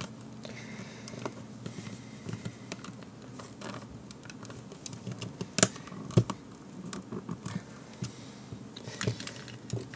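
Fingers working the plastic back case of a Garmin nüvi 1690 GPS loose from its chrome frame: scattered small clicks and scratches, with a couple of louder clicks a little past halfway.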